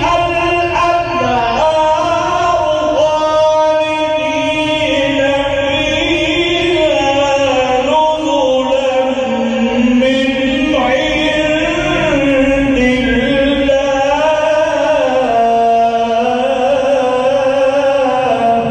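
Quran recitation: a single voice chanting in the drawn-out melodic tajweed style, holding long ornamented notes that glide up and down.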